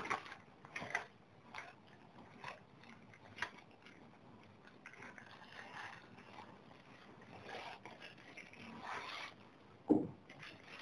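Fabric tripod carry bag being handled and opened: a run of short scrapes and rustles of the cloth and its zip, then a dull thump near the end as the tripod comes out of the bag.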